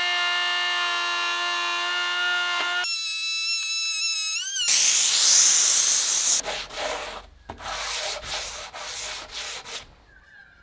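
Palm router running with a steady whine, its pitch shifting a few seconds in, then a loud rushing noise as it cuts the groove in the form ply. From about six seconds in, hand strokes rub along the routed groove, about two a second.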